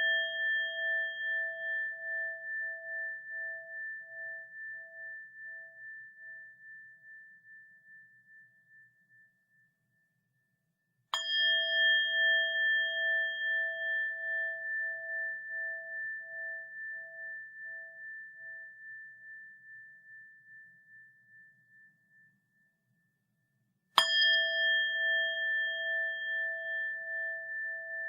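A bell struck about every twelve seconds, twice here, at about 11 s and 24 s in. Each note rings on with a slow wavering pulse and fades away over about ten seconds. The opening seconds hold the fading ring of a strike made just before.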